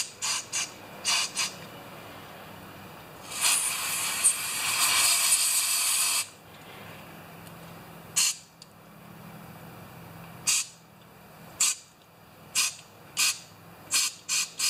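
A steady hiss of pressurized spray, about three seconds long, aimed at a small engine carburetor. Before and after it come a run of short, sharp brushing scrapes as the carburetor is scrubbed clean.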